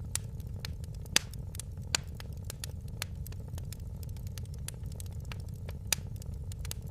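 Wood fire crackling steadily over a low rumble, with a few sharper pops, the loudest about a second in.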